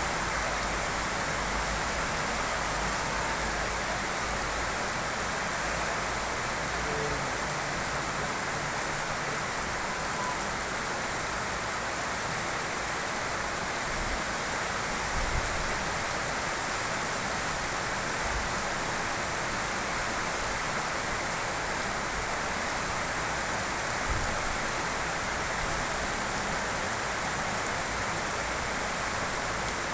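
Steady rain falling, an even, unbroken hiss with no let-up, with a couple of faint low thumps.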